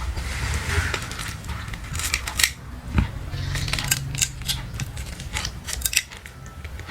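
A string of short, sharp clicks and crackles from hands handling slime-making materials, with two louder knocks about two and a half and three seconds in.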